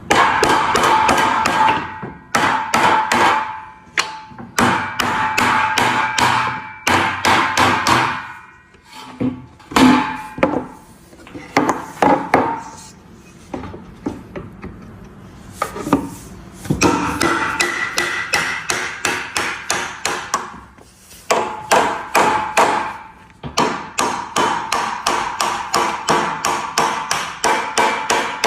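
Hammer strikes in runs of a few seconds, about three to four blows a second, each with a short ringing tone.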